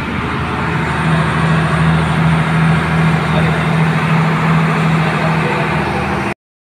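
Engine of a motorized outrigger boat (bangka) running steadily under way, a low drone under a rush of wind and water noise. All of it cuts off abruptly near the end.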